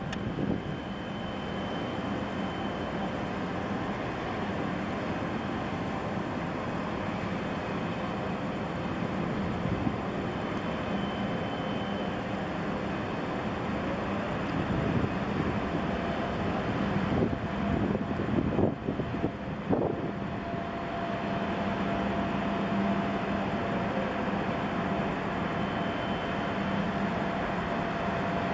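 Steady low drone of a large Evergreen B-type container ship's engines and machinery as it sails past, with a faint whine on top. A few short knocks and rumbles come about two thirds of the way through.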